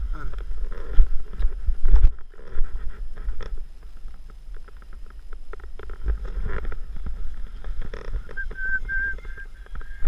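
Low rumble and thumps on a body-worn camera's microphone, with rustling and clicks as paraglider lines and risers are handled. A brief high whistled tone comes near the end.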